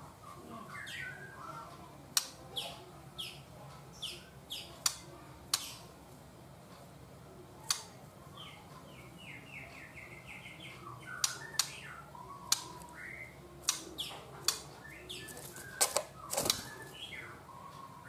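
Juvenile white-rumped shama calling in its cage: scattered short falling chirps and sharp clicks, with a quick run of about eight short notes near the middle.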